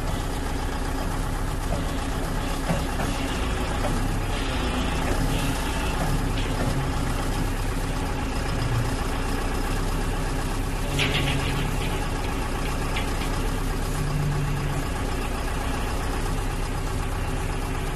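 Hydraulic crawler excavator's diesel engine running steadily.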